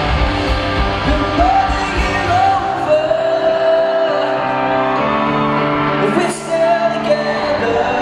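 A pop-rock band playing live with a lead vocal, heard in a large hall. The drums and low end pound for the first two and a half seconds, then drop away and leave long held sung notes over the band. A short loud burst comes a little after six seconds.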